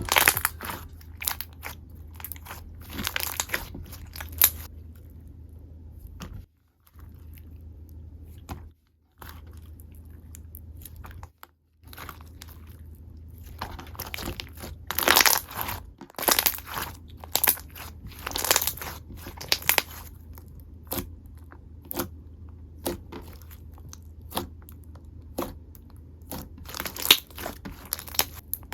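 Clear slime being played with by hand, giving clusters of sticky crackling clicks and pops, with a few brief drops to silence.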